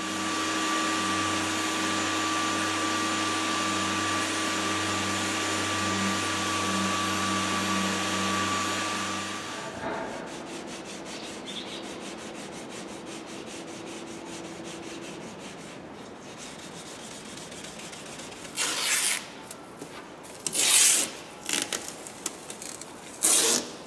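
Power sander running steadily as it scuffs the car's painted side sill, stopping about ten seconds in. Near the end come three short rasping rips, masking tape pulled off the roll.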